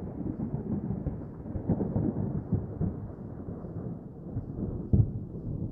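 A deep rumbling sound effect that slowly dies away, with one thump about five seconds in.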